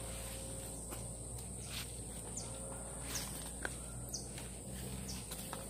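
Insects droning steadily at a high pitch, with a few light footsteps and scattered faint ticks and short chirps.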